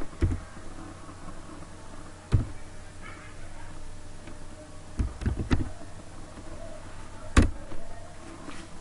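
Scattered clicks of a computer keyboard and mouse: single presses early on, a quick cluster of keystrokes about five seconds in, and a sharper click near the end, over a steady low hum.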